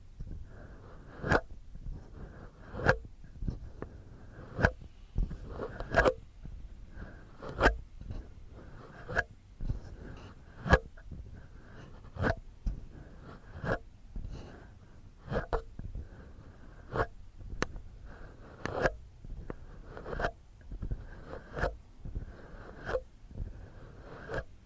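Fingertips and fingernails scratching and rubbing close on the microphone to mimic ear cleaning. A sharp scratch comes about every second and a half, with softer rubbing between the strokes.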